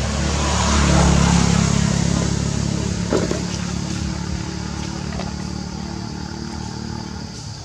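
A motor vehicle's engine running nearby, its low steady hum swelling to its loudest about a second in and then slowly fading away, with a brief knock about three seconds in.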